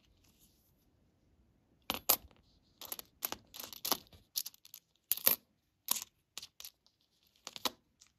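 Nickels clicking and clinking against one another as they are pushed and spread out by fingers: about a dozen short, sharp, irregular clicks starting about two seconds in.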